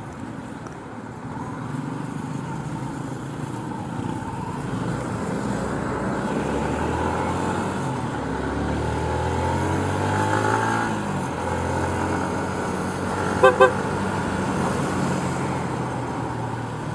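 Yamaha Sniper 150 single-cylinder motorcycle engine running under way, with road and wind noise; its pitch rises as it accelerates about halfway through. About two-thirds of the way in, a horn gives two short toots.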